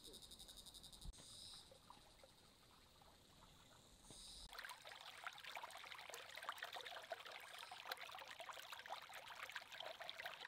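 Faint insects chirping in a fast pulsing rhythm. It gives way to near silence, and then, from about four and a half seconds in, a shallow stream trickles and splashes over rocks.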